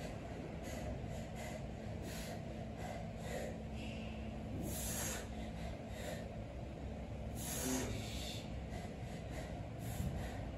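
A lifter breathing hard between bench-press reps: a run of short, sharp breaths, with two longer, stronger exhales about five seconds in and near eight seconds. A steady low hum runs underneath.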